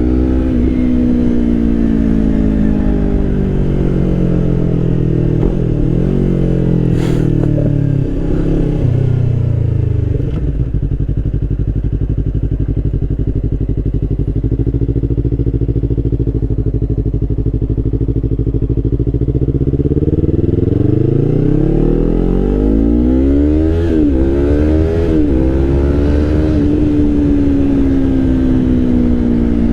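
Yamaha R3 parallel-twin through an Akrapovič GP slip-on exhaust, heard while riding. The engine note falls away, holds steady, then climbs through the revs. About two-thirds of the way through come a few quick blips and drops, typical of rev-matched downshifts, with the exhaust's bark.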